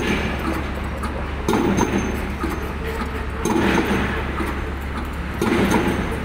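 Piling rig driving a precast concrete pile: a heavy hammer blow with a short metallic clatter about every two seconds, three times, over the rig's steady diesel engine hum.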